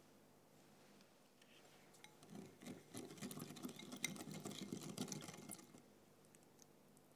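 Wire whisk beating a thin milk mixture in a glass bowl, with rapid clicks and taps of the wires against the glass for about three seconds, starting about two seconds in.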